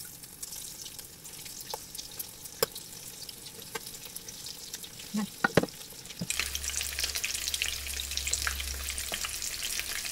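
Breadcrumb- and nori-coated eggplant and ham rolls frying in hot oil in a pan: a steady crackling sizzle with a few sharp clicks as pieces go in. The sizzle gets louder about six seconds in.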